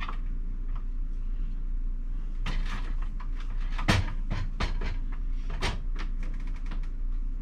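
Plastic filter housings of a reverse osmosis unit clicking and knocking as they are handled and tightened with a filter wrench. A quick run of clicks starts about two and a half seconds in, with the loudest knock near the middle.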